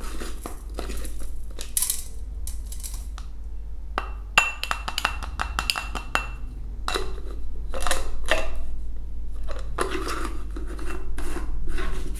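A glass blender jar and its plastic blade base being unscrewed and emptied into a stainless steel bowl: irregular clinks, knocks and scraping, with a short ringing clink about four and a half seconds in.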